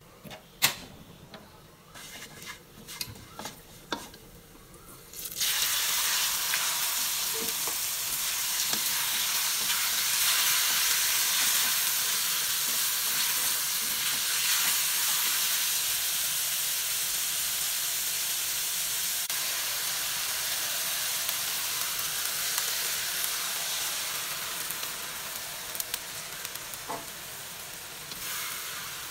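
Spatula scraping and tapping a wok over quietly frying garlic, then a sudden loud sizzle about five seconds in, as diced raw chicken goes into the hot oil. The sizzle holds steady while the chicken is stirred and eases slightly near the end, with a few more spatula clicks.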